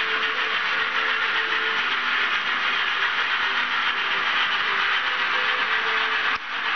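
Digital steam-locomotive sound for a BR 95 tank engine from an ESU sound decoder in a model locomotive, heard through the model's small speaker: a steady hissing with a faint pitched hum underneath. It briefly drops out near the end.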